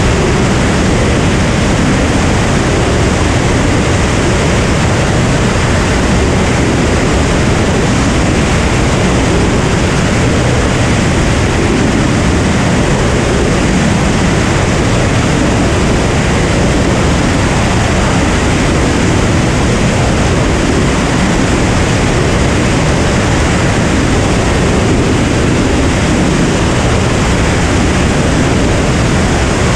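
Cirrus SR22 single-engine propeller plane in cruise flight: a loud, steady rush of engine, propeller and airflow noise that does not change.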